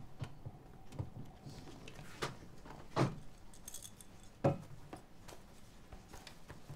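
Bottles being handled and set down on a desk: a few light knocks spread out, with a brief high jingle around the middle.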